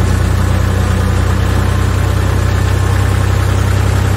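Massey Ferguson 255 tractor's diesel engine running steadily at low, even revs, heard from on board as the tractor crawls along the track.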